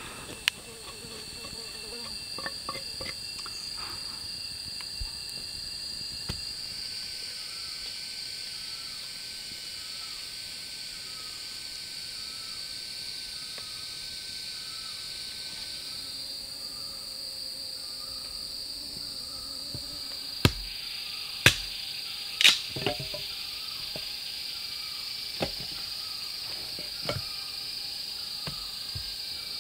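Steady high-pitched insect chorus. About twenty seconds in come three sharp knocks a second apart, with a few fainter clicks around them.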